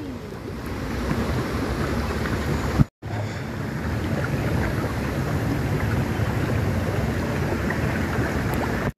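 Jacuzzi jets churning the water: a steady rushing and bubbling that cuts out briefly about three seconds in.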